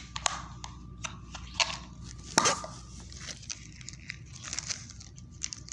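Small plastic toy parts and packaging being handled: a run of light clicks and clatters, one louder knock about two and a half seconds in, and some rustling near the end.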